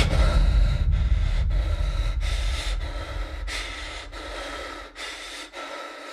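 Rapid, heavy breathing, a breath about every two-thirds of a second, over a low rumble that slowly fades away.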